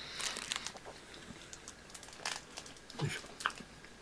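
Foil snack wrapper crinkling softly in the hands in a few short bursts, with a brief low murmur from a voice about three seconds in.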